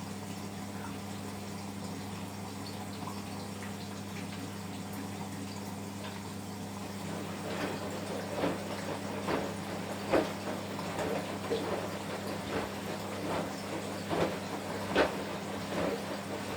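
Washing machine running through a wash: a steady low hum, with water sloshing and splashing as the drum turns the laundry, the splashes coming louder and more often from about seven seconds in.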